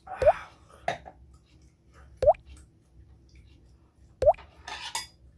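Drops plopping into liquid at an even pace, one about every two seconds, each a short click with a quick upward blip; faint clattering comes just after the first and around the third.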